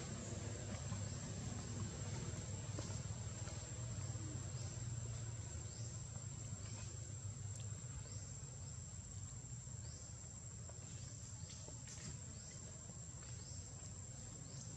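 Outdoor ambience: insects droning steadily on one high note, with short rising chirps repeating every second or so over a low, steady rumble.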